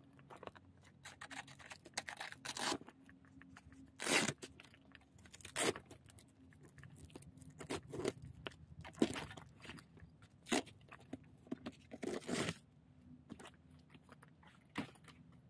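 Handling noises of hands working on an electric bike: an irregular run of clicks, scrapes and rustles, with a few longer tearing sounds, the loudest about four seconds in and about twelve seconds in.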